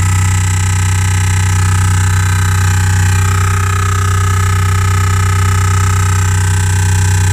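Bose sound system in a 2015 Renault Grand Scenic putting out a loud, steady low hum through the bass speaker, with a cluster of steady higher tones above it: the 'drilling noise' fault of the R-Link system, which Renault traced to the nav software and cured by reprogramming.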